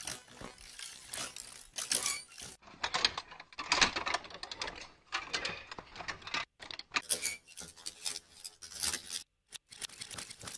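Rattling metal coat hangers fed through the u-he Uhbik-G granular pitch-shifter, turned into grainy, glitchy metallic textures. The character changes as presets are switched: the top end is cut off from about two and a half to seven seconds in, with brief dropouts near seven and nine seconds.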